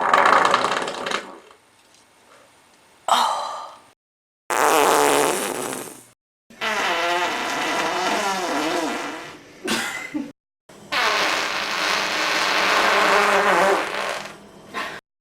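A string of about seven farts cut one after another. Some are short blasts; two are drawn out for three or four seconds with a wavering pitch.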